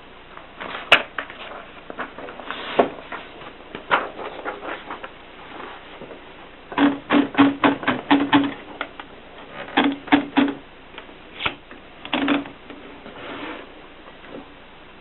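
Gossen Tippa portable typewriter being typed on: scattered single key strikes, then quick runs of clacks about seven, ten and twelve seconds in.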